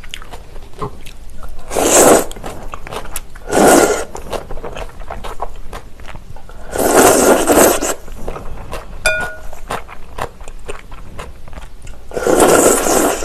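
Slurping agar-agar noodles out of cold soybean soup: four loud slurps, the longest about a second, with soft chewing and chopstick clicks between them.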